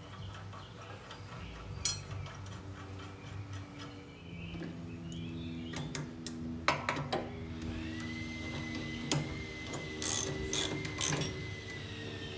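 Socket ratchet clicking in short runs as a lawn mower blade's bolt is turned onto the deck spindle, with sharp metal clinks of socket and blade. The loudest clicks come in a quick cluster near the end.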